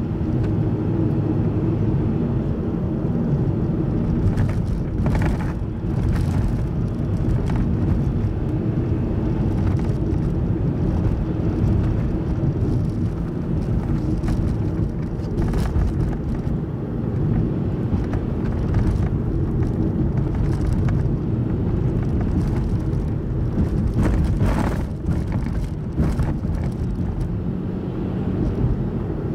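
Car driving at steady speed, heard from inside: a continuous low rumble of engine and road noise, with a few brief knocks along the way.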